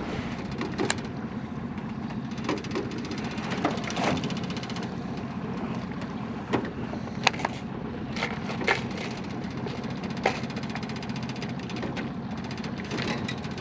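Fishing reel being cranked, its gears giving a fast, even ticking in stretches, with scattered clicks and knocks from the rod and tackle. A steady low hum runs underneath throughout.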